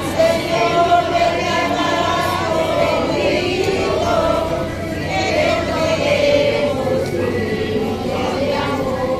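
A crowd singing a hymn together, many voices holding long notes.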